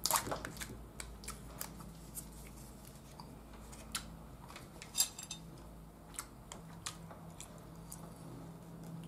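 Foil lid being peeled off a small plastic yogurt cup, with crinkling at the start and scattered clicks and taps as the cup is handled and a spoon goes in, the sharpest tap about five seconds in. A faint steady low hum runs underneath.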